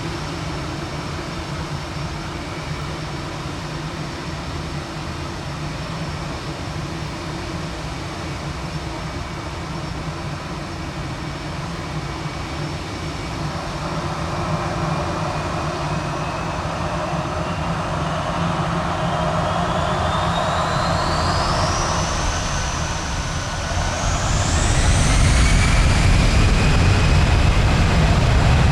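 Airbus A319's twin jet engines spooling up for takeoff. A steady whine at idle turns, from about halfway in, into a rising whine that climbs in two steps. The second step, near the end, brings a loud low rumble as takeoff thrust is set.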